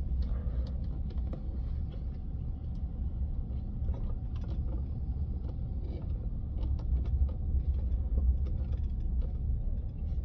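Steady low rumble of a car on the move, heard from inside the cabin, with a few faint clicks and rattles.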